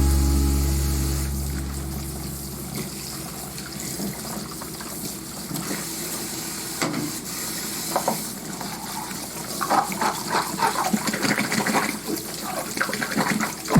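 Background music fading out, then water running or being poured in a kitchen, with irregular clinks and knocks in the second half.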